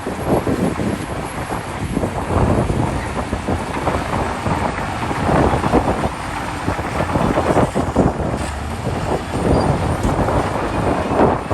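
Heavy earthmoving machinery, a bulldozer's diesel engine and tracks, running under load at a worksite, a dense rough noise that rises and falls in level without a break.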